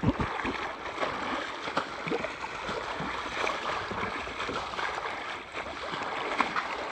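Sea water rushing and splashing steadily as a dolphin swims along the surface, towing a person who holds onto it.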